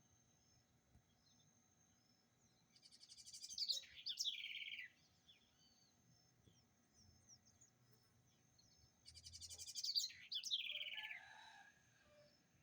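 A songbird singing two phrases about six seconds apart. Each phrase is a fast trill that builds in loudness and breaks into a run of falling notes. Faint high chirping continues between them.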